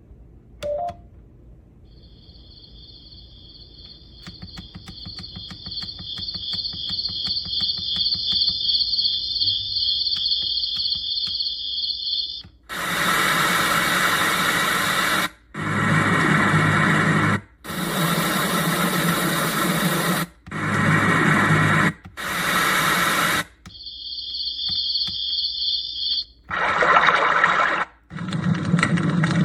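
Sunrise alarm clock's built-in sound machine stepping through its sound tracks: a steady cricket chorus for about ten seconds, then a string of different white-noise-like hiss tracks, each cut off abruptly after two or three seconds. The crickets come back briefly near the end.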